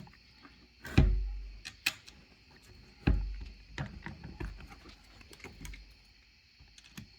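A few separate knocks and clunks from fuel pump parts being handled and pushed into place, two of them heavier thumps that fade over about half a second, with lighter clicks between.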